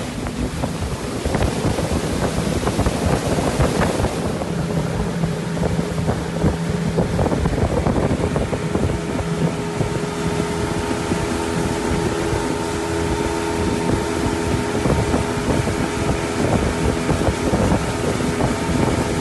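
Motorboat engine running steadily at cruising speed, heard from on board, with wind buffeting the microphone and water rushing past the hull.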